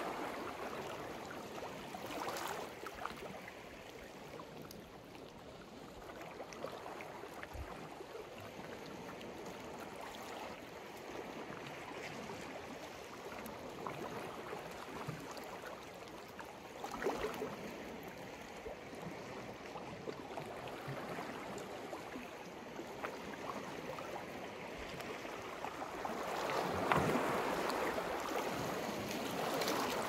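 Sea waves washing onto the shore: a steady wash of surf, with one wave breaking about halfway through and a larger, longer surge near the end.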